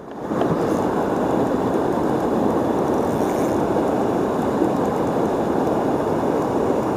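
Steady rush of fast river current over shallow rapids.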